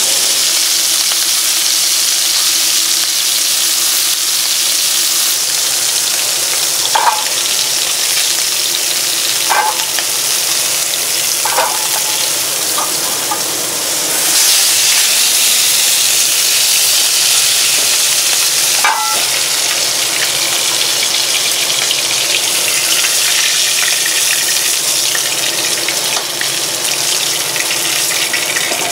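Bone-in wild boar ribs sizzling steadily as they fry in a hot pan, with a few short sharp clicks of utensils along the way.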